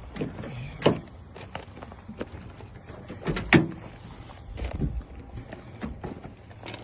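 Footsteps and scattered knocks and clicks of a pickup truck's door and a freshly cut key being handled. The two sharpest knocks come about a second in and about halfway through.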